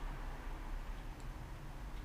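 Quiet low steady hum with a faint tick or two of small hand work, as a pointed tool trues up the cut end of a bicycle brake cable housing.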